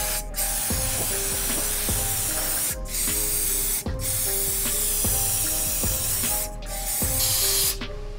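Aerosol brake cleaner spraying in long hissing blasts, with a few short breaks between them, as leaked engine oil is washed out of a manual transmission's bell housing.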